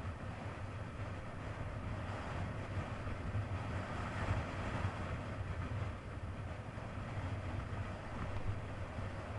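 1999 Kawasaki ZX-9R's inline-four engine running at a steady cruising pace, with wind and road noise on an action camera's microphone. The sound holds steady with no clear revving or gear change.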